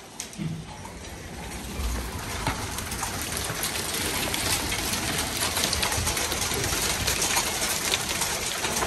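Steady rain falling, an even hiss thick with small ticks, growing louder over the first two seconds and then holding steady.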